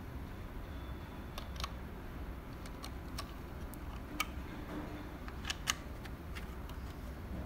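Scattered light clicks and taps from handling the switch panel kit's small plastic parts and packaging, over a steady low hum.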